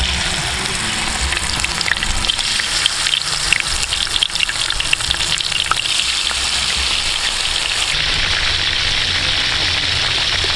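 Battered mushrooms deep-frying in hot oil in a wok: a loud sizzle that starts suddenly, crackling and popping most between about two and six seconds in, then settling into a steadier hiss.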